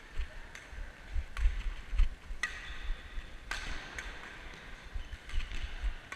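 Badminton play: a string of sharp racket-on-shuttlecock hits, about a second apart or closer, over dull low thumps from a player's footsteps on the court.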